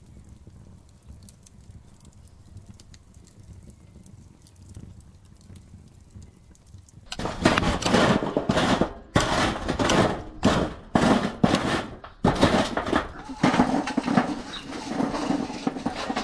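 A faint low rumble, then from about seven seconds in loud, irregular clattering and scraping of charcoal briquettes against a metal barbecue tray as they are moved with tongs and tipped out of a chimney starter.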